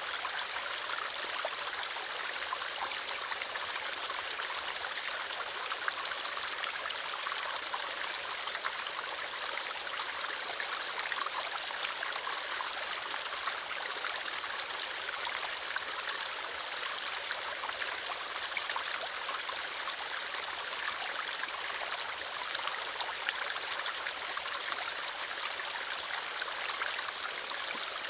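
Running water flowing steadily outdoors, a constant splashing rush with many small droplet ticks in it.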